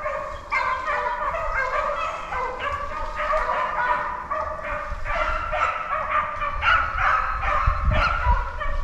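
A pack of beagles baying together, many voices overlapping in a continuous chorus: the hounds are giving tongue as they run a rabbit's scent trail.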